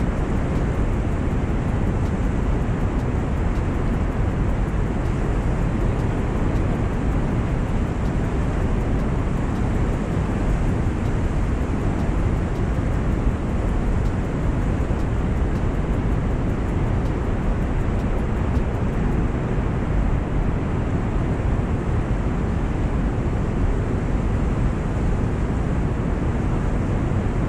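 Steady rumble of wind on the microphone over fast-flowing canal water, heaviest in the low end.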